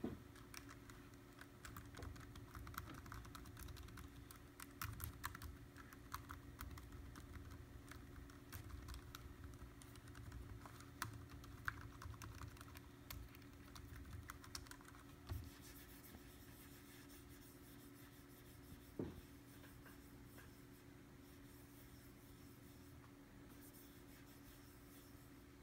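Faint, irregular light clicks and taps from hands and small tools working on a MacBook Pro laptop, dense for the first fifteen seconds or so and then sparse, with a single louder knock about nineteen seconds in. A steady low hum runs underneath.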